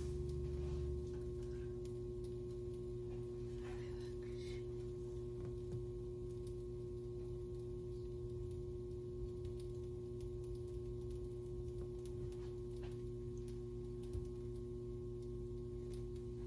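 A steady electrical hum carrying one constant mid-pitched tone, with a deeper rumble that drops away about a second in.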